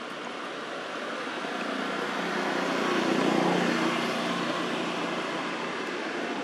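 A motor vehicle passing: engine and road noise that grows to its loudest about three and a half seconds in, then eases off.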